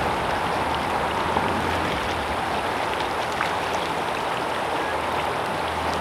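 Shallow, fast river running over rocks: a steady, even rush of water.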